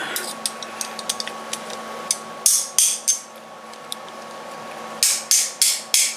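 Hammer tapping a drill bit used as a punch to drive the pin out of a brass door hinge, metal striking metal. Three sharp taps about two and a half seconds in, a pause, then four more near the end, about three a second.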